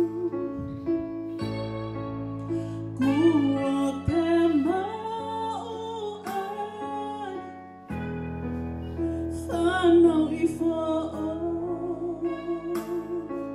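Slow song: a singer with vibrato over sustained accompaniment chords that change every few seconds.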